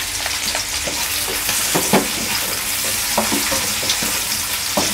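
Sliced meatballs, shallots and garlic sizzling in hot oil in a wok, with a spatula scraping and knocking against the pan a few times as they are stir-fried.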